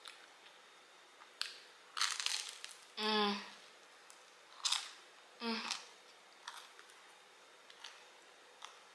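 Close-up chewing and mouth sounds of someone eating a slice of cheese pizza: scattered smacks and crunches of crust. Two short voiced sounds come about three seconds in and again about five and a half seconds in.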